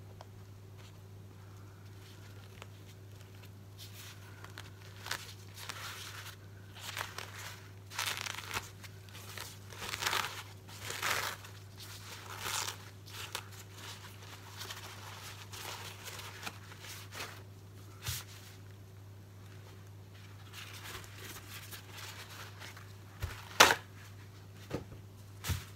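Kitchen paper towels being handled and crumpled, in irregular rustling, crinkling bursts, followed near the end by a sharp knock.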